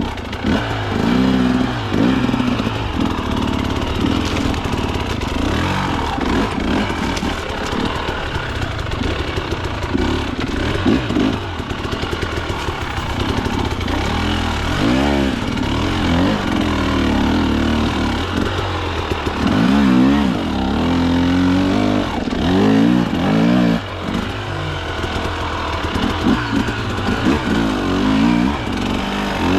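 KTM two-stroke hard enduro dirt bike engine revving up and down over and over, the throttle worked in repeated short surges as the bike climbs through rough terrain.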